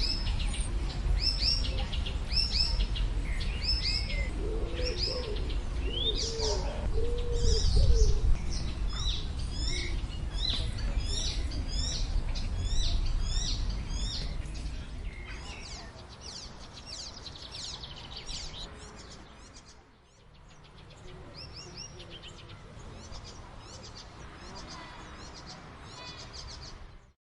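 Icterine warbler singing a long, varied song of chattering and whistled phrases, with a fast run of repeated notes near the middle and a few lower notes around five to seven seconds in. A low rumble lies under the first half and fades after about fourteen seconds.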